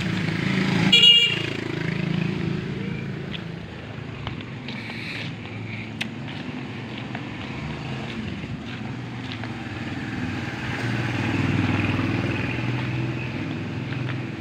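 Motorcycle engine running nearby, its hum growing louder later on as it comes closer. A short, high-pitched sound about a second in is the loudest moment.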